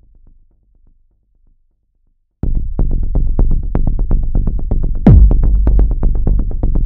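Electronic dance music. It fades to near silence, then comes back in abruptly with a loud, fast, steady beat about two and a half seconds in, and a falling sweep about five seconds in.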